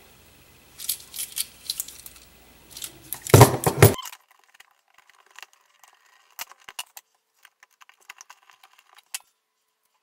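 Handling of a GFCI receptacle: light plastic-and-metal clicks and rattles, with a denser, louder clatter about three and a half seconds in. After the background hiss cuts out about four seconds in, faint scattered ticks of a screwdriver working at the outlet box.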